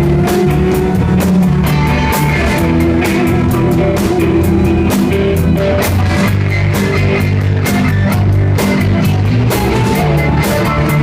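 Live rock band playing loudly, with guitar and drum kit.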